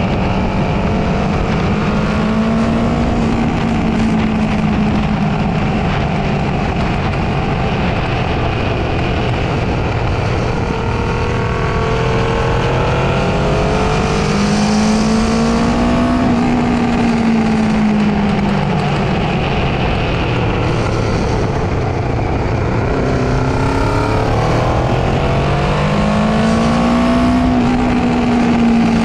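Honda CB500's parallel-twin engine running hard on track, its pitch rising and falling in three slow swells as the bike accelerates and eases off through the corners, over a steady rush of wind and road noise.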